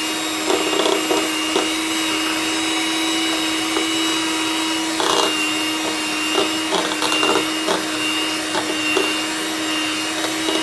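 Handheld electric mixer running steadily with a constant motor whine as its beaters whip chilled cream in a bowl, with short clicks now and then from the beaters knocking the bowl.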